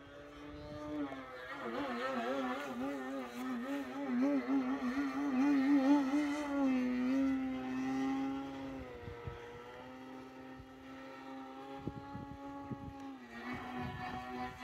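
Propeller drone of an Extreme Flight Extra 260 electric aerobatic RC plane, its T-Motor AM670 motor swinging an 18x8 carbon prop, in flight. The pitch wavers rapidly up and down several times a second through the louder middle part, then settles into a steadier, slightly lower drone.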